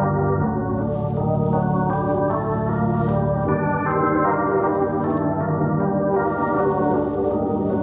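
Soundtrack music: sustained organ-like keyboard chords that shift to new notes every second or so.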